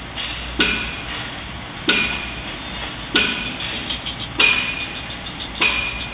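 Sharp metallic clanks at an even pace, five in all, about one every second and a quarter. Each strike rings briefly and dies away before the next.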